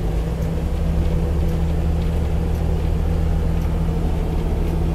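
Crown Coach bus's mid-mounted Big Cam Cummins turbo diesel running steadily while cruising, a low, even drone.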